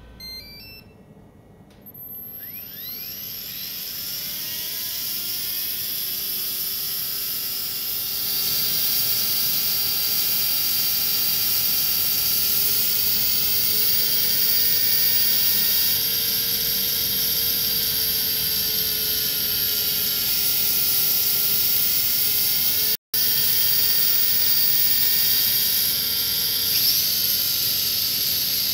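Gyro flywheel of a Kyosho Mini-Z Moto Racer RC motorcycle spinning up with a rising electric whine from about two seconds in, then running as a steady high whine. Its pitch shifts gently up and down a few times as the gyro's speed changes.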